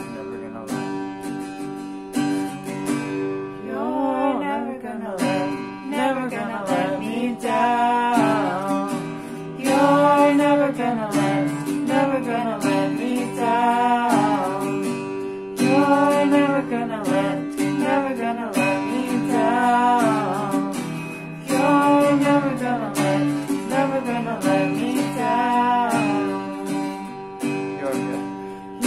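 Acoustic guitar strummed as accompaniment to a man and a woman singing a worship song together; the guitar plays alone for the first few seconds before the voices come in.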